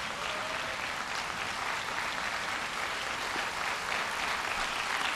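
Audience applauding, a steady dense patter of many hands clapping that grows slightly louder.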